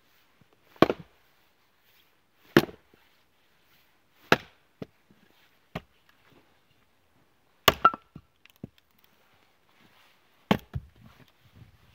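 A 3-pound axe chopping into firewood rounds on a stump chopping block: five hard blows, each a sharp crack of steel biting into wood, spaced about one and a half to three seconds apart, with a few lighter knocks between them.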